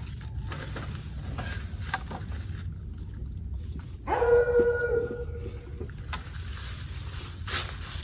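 A dog whines once, a steady, high cry lasting nearly two seconds, starting about four seconds in. Before it, soft rustling and light knocks of wooden beehive frames being picked up from the leaf litter.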